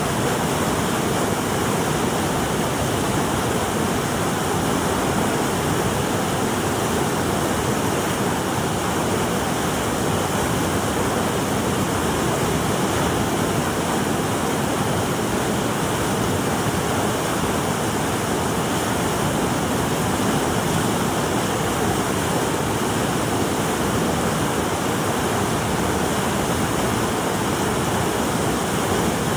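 Steady rush of flowing water, an even, unbroken roar with no surges or breaks.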